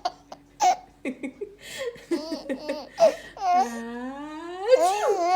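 Baby laughing at a sneeze in short bursts of giggles, with a longer drawn-out laugh about three and a half seconds in and a louder one rising near the end.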